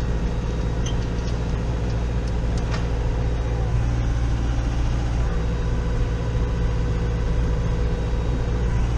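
Massey Ferguson 5440 tractor's diesel engine running steadily, heard from inside the cab as the tractor drives slowly through snow.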